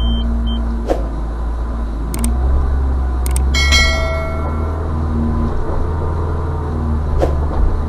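UAZ Patriot's 2.7-litre petrol engine running steadily in reverse low range while pulling a stuck SUV on a tow strap, with two sharp knocks, about a second in and near the end. Partway through, a pair of mouse clicks and a bell chime ring out: the sound effect of a YouTube subscribe animation.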